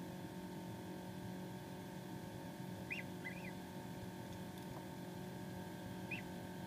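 Gosling peeping three times in short high chirps, two close together about three seconds in and one about six seconds in, over the steady hum of the incubator.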